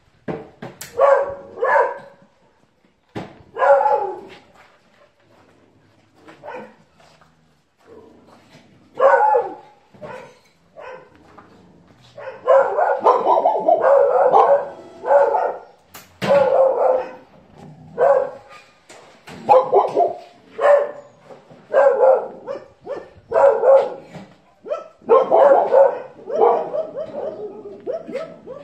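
Dogs barking in short bursts, a few scattered barks at first, then barking almost without pause through the second half.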